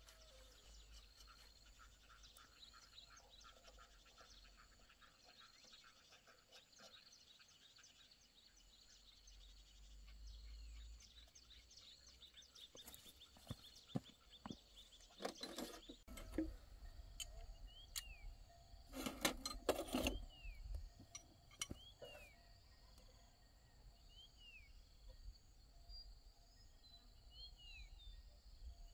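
Faint outdoor ambience: a steady high insect drone, with short falling chirps repeating every second or two in the second half. A few sharp metal clinks and knocks come in the middle.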